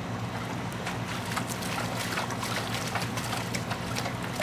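Border collie biting and snapping at swimming-pool water: a run of quick splashes and slaps over a steady low hum.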